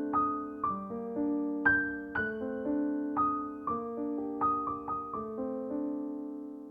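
Background music: a slow, gentle piano piece, single notes and chords struck about every half second and left to ring.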